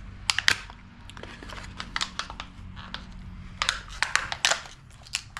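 Hard plastic packaging being handled and pried open, with irregular clicks, snaps and crinkles, over a low steady hum that stops about four seconds in.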